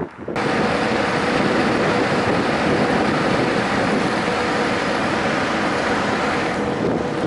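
Car ferry under way: a steady rush of wind and water along the hull with a low engine hum beneath it, cutting in suddenly just after the start.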